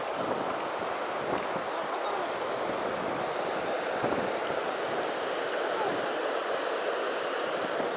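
Steady rush of river water, with wind buffeting the microphone.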